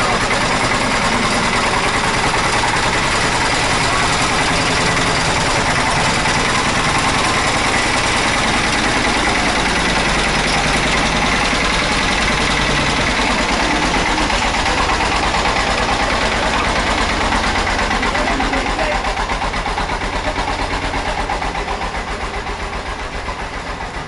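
Small tractor's engine running steadily close by, with an even, fast beat; it gets quieter over the last few seconds.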